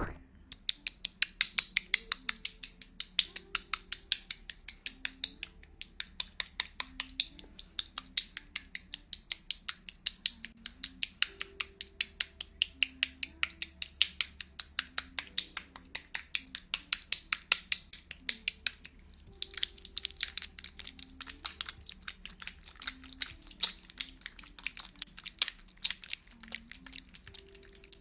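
Close-miked ASMR tongue clicking: a long run of sharp, regular clicks, several a second, with a brief pause a little past the middle. Soft background music with a slow melody lies underneath.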